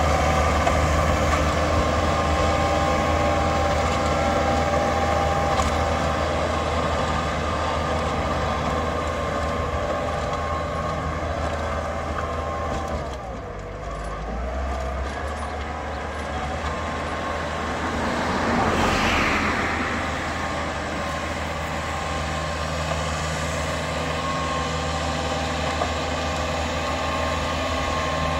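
Kubota farm tractor's diesel engine running steadily while pulling a rear rotary tiller fitted with a ridger through the soil. About halfway through the engine note sinks and quietens, then a few seconds later rises again with a swell of noise before settling back to steady working.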